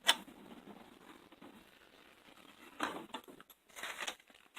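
Metal tool-cart drawers being shut and pulled open: a sharp clack at the start, a low sliding rumble of a drawer on its runners, then a few knocks and rattles of metal about three and four seconds in.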